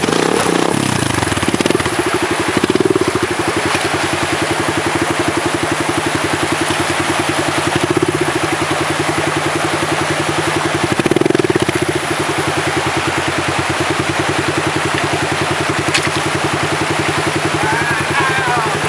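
Dirt bike engine running at a low idle with an even pulse, revved up briefly about 3 seconds in and again about 11 seconds in, while it is pushed through a shallow river. Rushing water can be heard under the engine.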